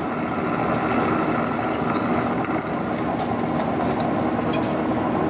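Carlton radial drill running on its 250-volt DC motor, the bit cutting through a metal adapter plate with a steady mechanical hum. The motor is arcing and running on low voltage.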